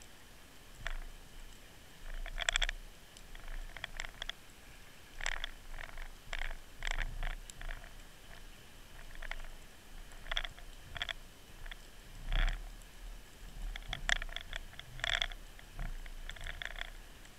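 Irregular clicks and knocks, a few close together, with now and then a low rumble, heard through an underwater fishing camera's housing as the rig sways on a line snagged on the seabed.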